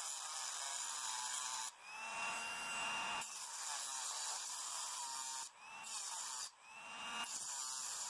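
Dremel rotary tool with a cut-off wheel slicing into the die-cast metal body of a 1:64 toy car: a steady high grinding hiss that dips briefly a few times.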